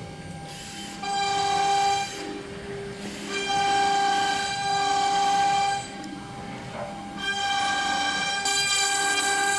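CNC wood router's 1.5 kW water-cooled spindle running with a steady high-pitched whine, which swells louder in three stretches (about a second in, around three and a half seconds, and from about seven seconds) as the bit engraves the work.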